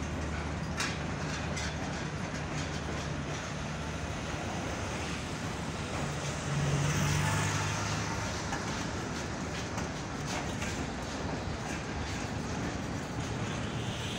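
Passenger coaches of a departing train rolling past, wheels clicking over the rail joints, with a steady low hum underneath. The sound swells louder briefly about halfway through.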